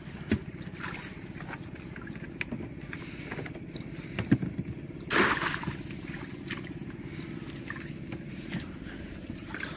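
Stream water sloshing and dripping as a wire-mesh crab trap is hauled up beside a small wooden boat, with a few light knocks and one louder rush of water about five seconds in.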